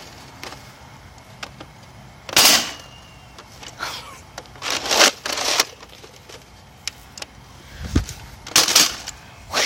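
A few short scuffing, rustling noises with gaps between them, and one low thud about two-thirds of the way through.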